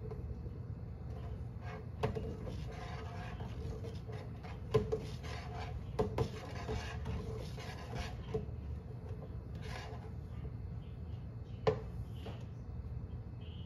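A metal ladle scraping and knocking against the bottom and sides of a stainless steel stockpot as soy milk is stirred while coming to the boil, with several sharp clinks, the loudest about five seconds in and near the end, over a steady low rumble.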